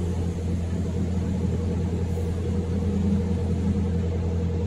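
Steady low machinery hum of a factory hall, with a few faint steady tones over it and no strikes or changes.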